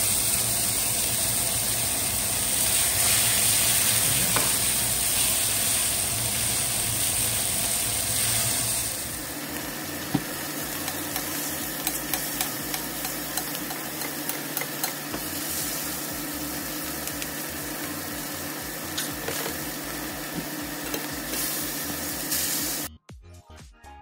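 Sirloin steaks sizzling in hot oil in a frying pan, louder for the first nine seconds and then quieter, with a single metal click about ten seconds in as the fat is spooned over them. The sizzle cuts off suddenly near the end, giving way to faint music.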